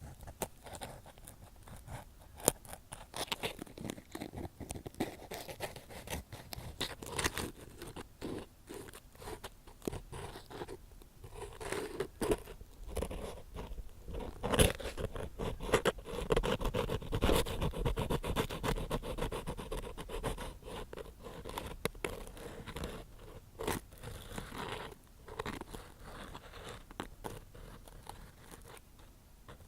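Ear pick scraping and scratching close to the microphone in ear-cleaning ASMR, a dense run of short, crisp scrapes that grow busier and louder through the middle and ease off near the end.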